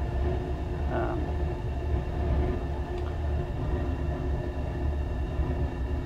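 Gas furnace running in its heating cycle: a steady low rumble with a constant hum over it.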